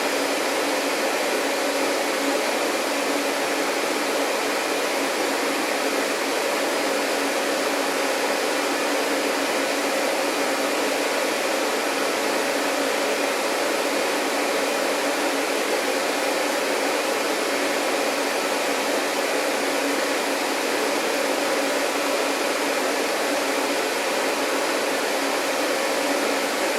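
Vacuum cleaner running continuously, a steady, unchanging rush of air with a low motor hum underneath.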